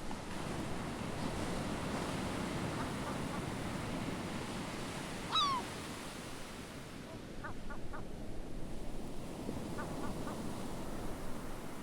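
Steady rushing noise like surf or wind. One loud downward-gliding bird call about five seconds in, and a few short bird chirps later.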